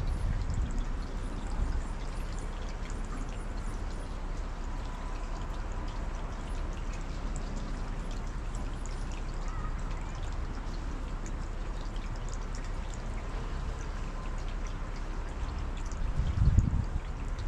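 Steady splashing noise like pouring or running water, with a brief low rumble about sixteen seconds in.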